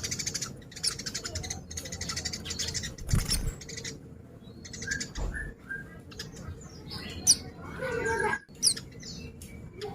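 Pleci (white-eye) singing: a fast, dense chattering trill for the first few seconds, then scattered high chirps and quick whistled sweeps.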